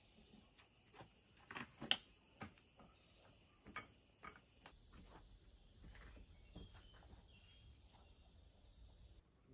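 Faint, scattered light taps and clicks, a few loose clusters, over a quiet background hiss.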